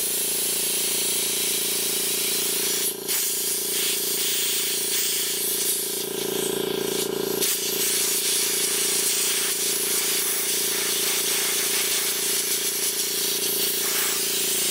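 A hermetic refrigeration compressor, a condensing unit run as an air compressor, hums steadily while compressed air hisses out at the fitting. The hum swells for a second or so about halfway through, then settles back.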